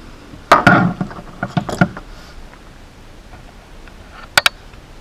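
Sharp clicks and knocks of small hard objects being handled by hand. There is a loud cluster in the first two seconds, then two quick sharp clicks near the end.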